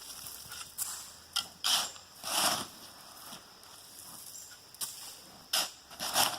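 Shovel scraping into gravel and tossing it, in a handful of irregular gritty scrapes a second or so apart.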